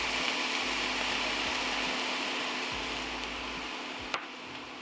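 Diced carrots, mushrooms, onion and garlic sizzling in a hot cast-iron skillet just after a splash of water went in, water-sauteing with no oil. A steady hiss that slowly fades in the second half, with a single sharp click about four seconds in.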